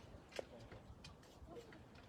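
Faint sharp knocks of weapon blows during an armored combat bout, the loudest about half a second in.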